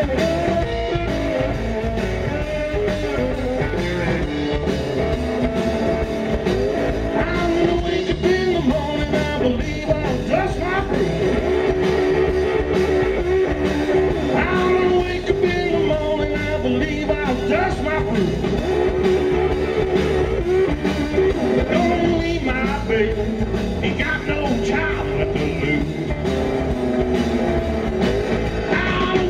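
Live blues band playing: electric guitar over bass guitar and a drum kit, running steadily.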